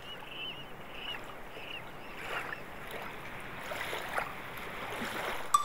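Water rails giving their pig-like squealing calls, two short rising squeals about two and four seconds in, over faint repeated high chirps of small birds. Music comes in near the end.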